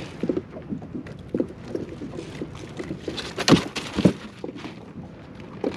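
Hands unhooking a fish in a landing net on a plastic kayak: scattered rustles, clicks and knocks, with two louder thumps about three and a half and four seconds in.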